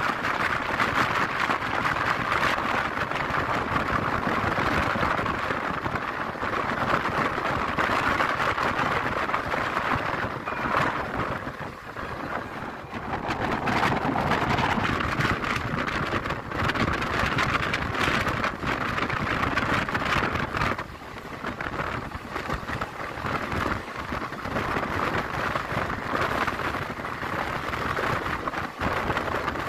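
Passenger express train running at speed, heard from outside the coach: a steady rush and rattle of wheels on the track, with wind rushing past the microphone. It eases slightly twice.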